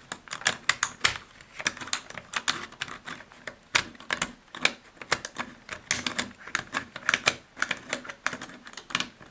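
Irregular, rapid plastic clicks and taps, several a second, from a PS3 controller being handled while its broken analog thumb stick is worked about.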